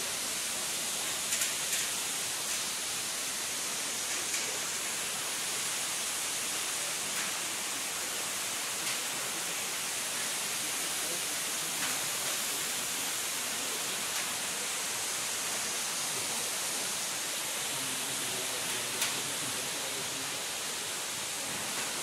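Waterfall rushing: a steady hiss of falling water, with a few faint ticks scattered through it.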